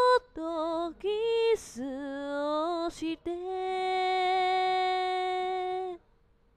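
A woman singing solo, with no accompaniment heard: a few short gliding phrases, then one long held note from about three seconds in that stops abruptly near the end.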